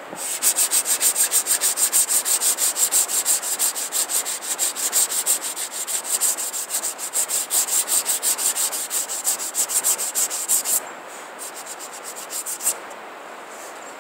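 Sandpaper rubbed by hand along the edge of a rawhide-backed wooden bow, in fast, even back-and-forth strokes, about five a second, for some ten seconds. It then slows to a few scattered strokes and stops. The sandpaper is worn out.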